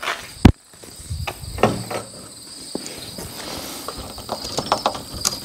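A sharp knock about half a second in, then scattered light taps and knocks as a level and shims are handled against a garage door panel being levelled. Insects keep up a steady high buzz throughout.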